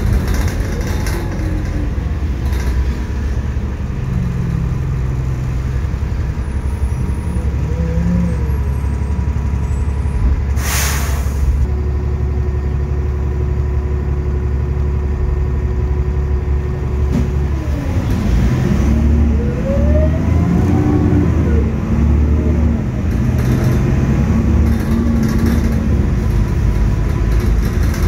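Diesel engine of a single-deck service bus heard from inside the cabin, running with a steady low drone. About ten seconds in there is a short hiss of compressed air. From a little past halfway the engine pitch rises and steps as the bus accelerates through its automatic gear changes.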